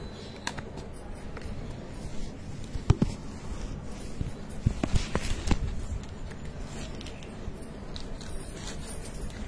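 Hands handling a cardboard earbud box and its packaging: scraping and rustling, with sharp knocks about three seconds in and a few more around five seconds in.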